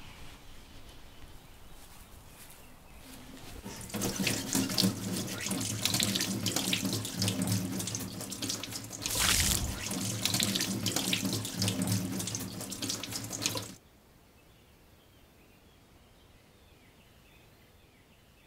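Kitchen tap running into a sink: a steady rush of water with a low hum underneath. It starts about four seconds in and cuts off suddenly a few seconds before the end.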